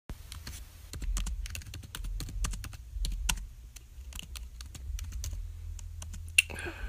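Typing on a computer keyboard: a run of quick, irregular key clicks as a short line of text is typed.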